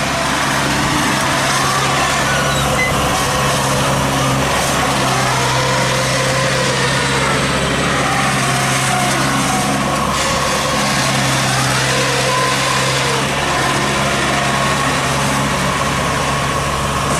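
Engine of a homemade straw-gathering machine, built from an old rice harvester, running steadily under a dense hiss of rain and wind on the microphone.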